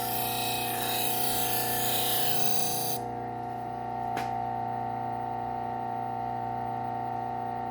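Motor of a low-speed sharpening machine running with a steady hum. A knife edge is held against the compounded leather wheel, making a hiss that stops abruptly about three seconds in. A light click follows about a second later.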